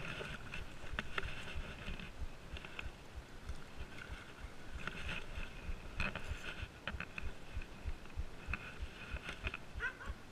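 Water sloshing and lapping around a stand-up paddleboard, with an irregular low rumble of wind buffeting and scattered small clicks.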